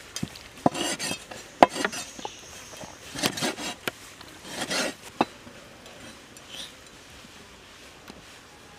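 Large kitchen knife cutting raw chicken livers on a wooden board: a few sharp knocks of the blade on the wood, mixed with scraping and rustling of the meat being handled, all in the first five seconds or so.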